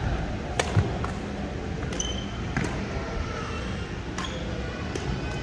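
Badminton rackets striking a shuttlecock in a rally: several sharp hits roughly a second apart, with a couple of brief high squeaks, as of shoes on the court floor.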